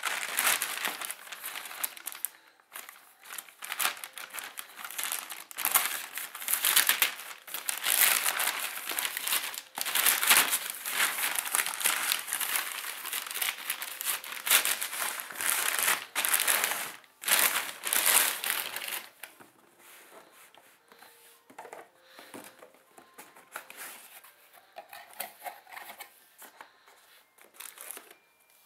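Plastic courier mailer bag crinkling and rustling loudly as it is opened and the boxed receiver is pulled out of it. After about 19 seconds this gives way to quieter, scattered rustling and handling of the opened cardboard box and its plastic-wrapped contents.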